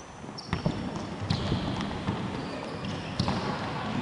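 Sneakers squeaking on a wooden court floor during an indoor football game, with a few sharp thuds of the ball being kicked and footsteps. Squeaks come in short runs, about half a second in and again near three seconds.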